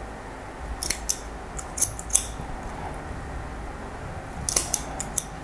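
Barber's scissors snipping through a section of wet hair held between the fingers: a few quick, sharp snips about a second in, then another run of snips near the end.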